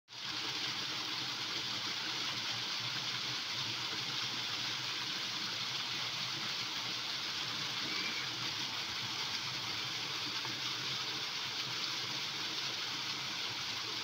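Garden wall fountain running: three foaming jets and thin sheets of water falling from the wall splash steadily into a shallow stone basin, a constant hiss of splashing water.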